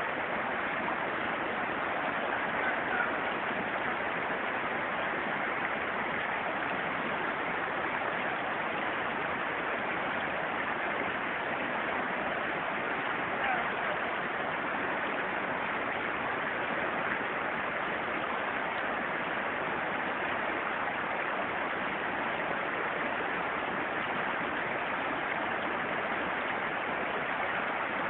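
Strong river current rushing steadily, an even, unbroken sound of fast-flowing water.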